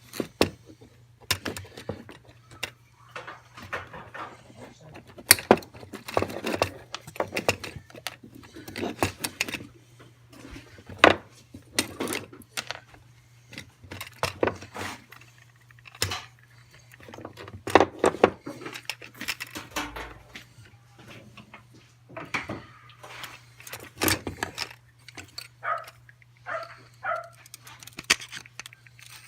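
Irregular clicks, snips and light metal clinks of hand work on a fuel tank sending unit as zip ties are cut off and the old fuel pump is worked loose, over a steady low hum.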